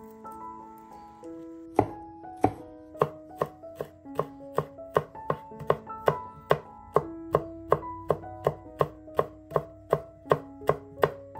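Chef's knife slicing garlic cloves on a wooden cutting board: sharp chops about three a second, starting about two seconds in, over background music.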